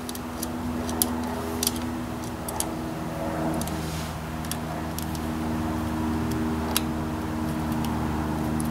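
Scattered small clicks and taps from hands handling ignition wires and a crimped wire terminal at the coil, over a steady low hum.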